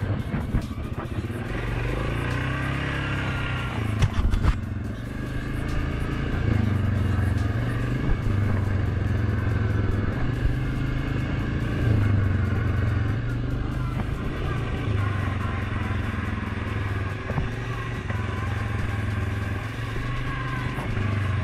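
Suzuki KingQuad 750 ATV's single-cylinder engine running on the trail, its note swelling and easing with the throttle every few seconds. A few sharp knocks come about four seconds in.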